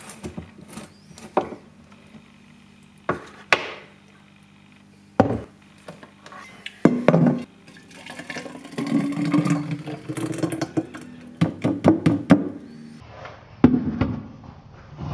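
Blender cup handled on a counter: several separate knocks and clunks as it is lifted off the base and moved, then green juice pouring from the cup into a ribbed glass jar in the middle, and a knock near the end as the cup is set down.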